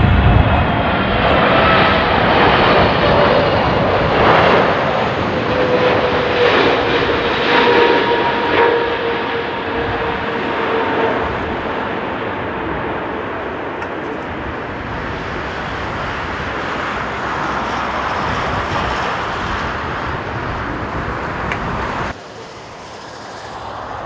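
ANA Boeing 777-300ER's GE90 turbofans passing close by on final approach: a loud jet roar with whining tones that fall in pitch as it goes past, fading slowly as it lands. Near the end the sound cuts abruptly to the quieter roar of a distant approaching Boeing 777.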